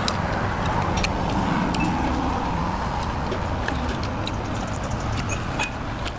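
Steady low background rumble, with scattered sharp clicks from eating: a spoon against bowls and chewing.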